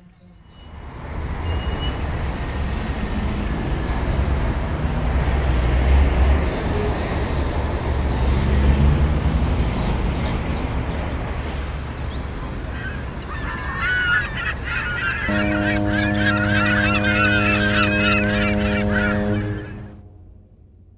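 Loud, steady outdoor rumble like wind or traffic. In the last several seconds, a busy chatter of bird-like calls and a steady held honking tone join in, and everything cuts off sharply near the end.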